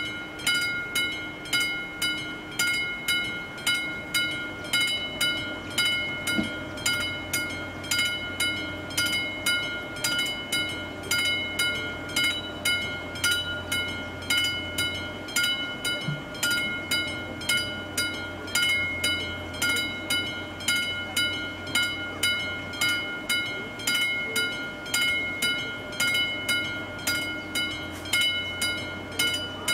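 Classic level-crossing warning bell striking steadily, about one and a half strokes a second, each stroke ringing on. It is the crossing's warning that a train is approaching.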